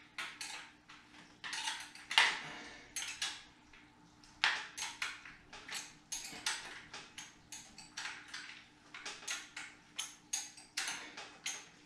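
Irregular metallic clicks and clinks from a hand tool working the fender-stay bolts on a bicycle's front fork as they are tightened.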